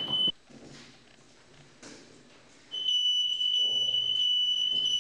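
Fire station's turnout alarm sounding one continuous high-pitched electronic tone, the call for the crew to turn out. The tone breaks off just after the start and comes back steadily about three seconds in, with only faint room noise in the gap.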